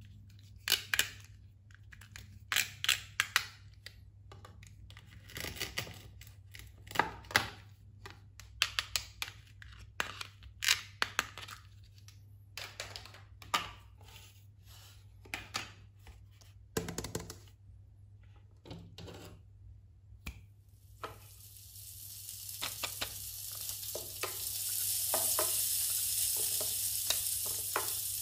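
Hard plastic toy kitchen pieces clicking and tapping as they are handled, in irregular sharp knocks, for about twenty seconds. Then a steady sizzling hiss, like food frying on a grill, comes in and grows louder.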